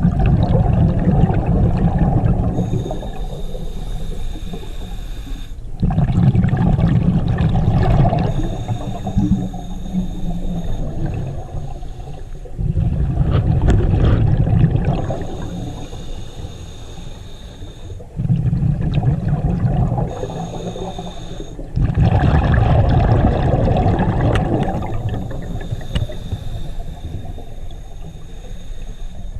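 Scuba diver breathing through a regulator underwater: a gurgling rush of exhaled bubbles about every five to six seconds, five times, with quieter inhale pauses between.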